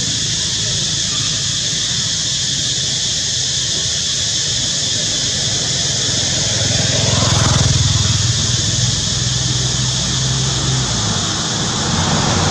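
Steady motor-engine drone under a constant high hiss; the engine swells louder about seven to eight seconds in, then settles back.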